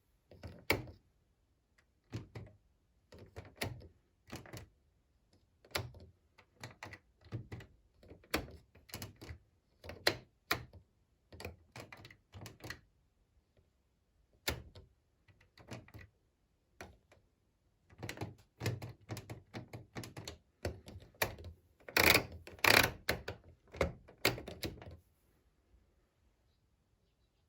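Irregular clicks and knocks from the controls of an Indesit IWME127 washing machine being worked by hand, such as the program dial being turned and option buttons pressed. The clicks come in short clusters, with a louder run of clatter about 22 seconds in.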